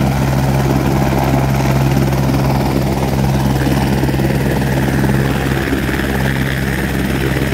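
Helicopter running on the helipad, a steady loud drone of its engine and rotor.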